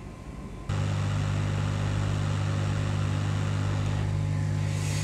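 Hot air rework gun switched on about a second in, blowing steadily with a low hum under the rush of air, heating off the shorted capacitor on the SSD's circuit board.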